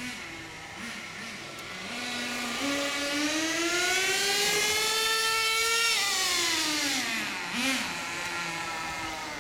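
RC car engine, most likely the 1/10 HSP truck's nitro engine: a few short throttle blips, then a buzzy whine rising in pitch for about four seconds as it accelerates away, and falling off after about six seconds, with one more short blip near the end.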